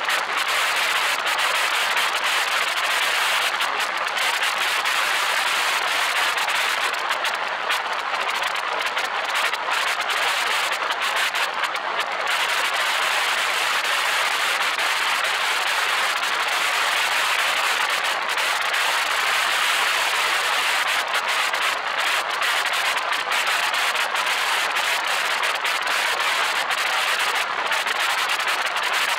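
Steady rush of wind and road noise from a car driving at speed, picked up by a camera mounted outside on the car's roof.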